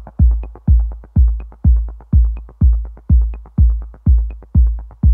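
Background electronic dance music with a steady beat: a heavy bass kick about twice a second and quick ticking hi-hats in between.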